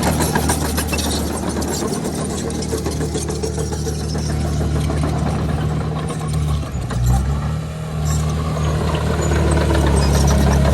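Heavy diesel engine of an earthmoving machine running steadily, with some metallic clatter. The engine note dips briefly about seven seconds in, then picks up again.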